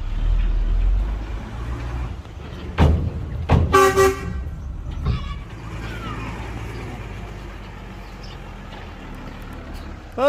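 Heavy diesel earthmoving machinery running with a steady low rumble, two heavy knocks about three seconds in, then a short vehicle horn toot about four seconds in and a fainter one a second later.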